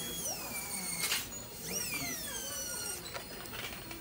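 Air-driven dental high-speed handpiece whining as it spins up and winds down twice, its pitch rising, holding briefly and then falling each time, with a short burst of hiss about a second in.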